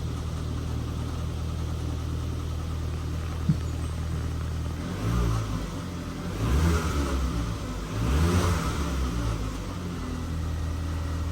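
2013 Ford Fiesta's 1.25-litre four-cylinder petrol engine idling steadily, with three brief revs in the second half. It is running on a newly fitted coil pack, spark plugs and ignition leads that were put in to cure a cylinder 3 misfire, and no fault code is now showing.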